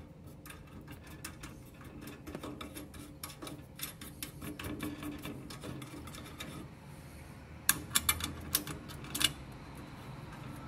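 Small metal screws being turned by hand into a gas burner's heat shield: faint ticking and scraping of metal parts, with a few sharper clicks about eight to nine seconds in.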